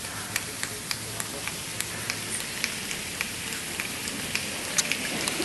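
A crowd making a 'rainstorm' with their hands: a steady hiss of many palms rubbing, dotted with scattered sharp finger snaps that grow more frequent near the end.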